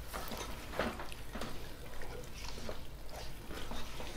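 Spatula stirring chicken masala in a nonstick wok: a run of irregular soft scrapes and scuffs against the pan.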